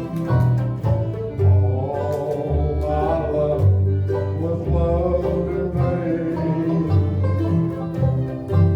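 Bluegrass string band playing a slow country tune live, with fiddle and picked strings over bass notes that change about once a second.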